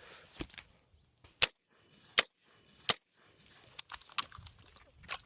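AR pistol fired three times in quick succession, roughly three-quarters of a second apart: a two-to-the-chest, one-to-the-head drill. A few fainter clicks and knocks follow.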